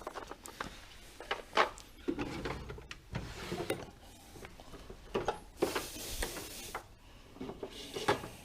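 Metal hand tools clinking and knocking as a bolt is screwed into the engine with a 14 mm socket, with scattered sharp clicks and a brief rasping rub a little past halfway.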